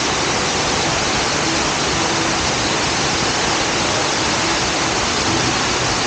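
Steady rush of the Benang Kelambu waterfall, water spilling in many thin cascades down a mossy rock face and onto the rocks below.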